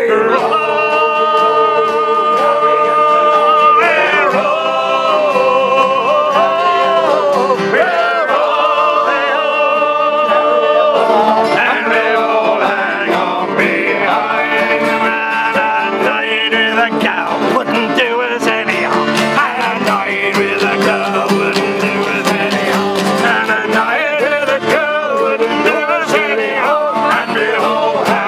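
A group of men singing a sea shanty together in rough unison, with acoustic guitars strummed and an accordion accompanying.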